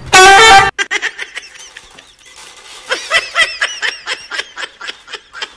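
A loud sound lasting about half a second at the start, then a person laughing hard in short, high, rapidly repeated bursts.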